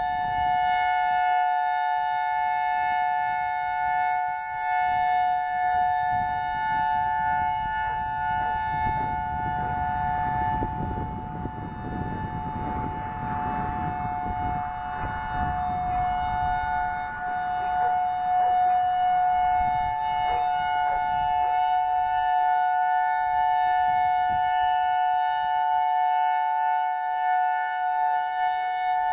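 Federal Signal EOWS 612 electronic siren sounding its steady Alert signal: a two-note chord held at one pitch throughout, swelling and dipping a little as its six-horn array rotates. Wind buffets the microphone, most strongly around the middle.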